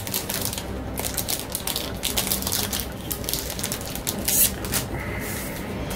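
Dry rustling, scraping and light ticking from trading cards being handled and slid into plastic card sleeves, in quick irregular strokes.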